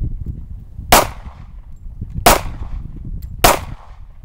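Semi-automatic pistol being fired three times, about a second and a half apart, each shot sharp with a brief echoing tail.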